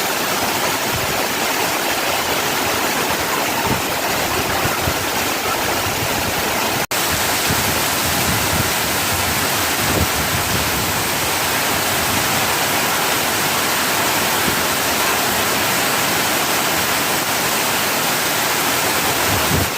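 Heavy rain pouring steadily, a dense even hiss, with a momentary dropout about seven seconds in.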